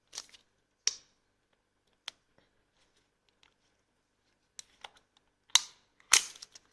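Scattered clicks and short crinkles of small plastic packaging being handled, a few separate sounds with the two loudest near the end.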